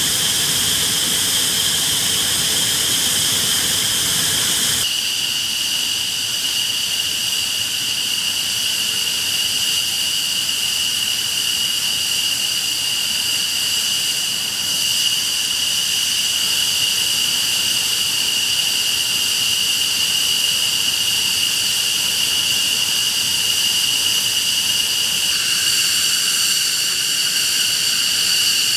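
F-15C Eagle's twin Pratt & Whitney F100 turbofans running on the ground: a loud, steady, high-pitched whine over a hiss. A deeper rumble drops away about five seconds in, and another whining tone joins near the end.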